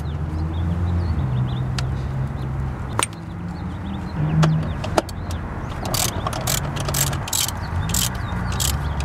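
Socket ratchet on an extension working a throttle body bolt: a few sharp metal clicks as the socket is fitted, then from about six seconds in a run of quick, even ratcheting strokes.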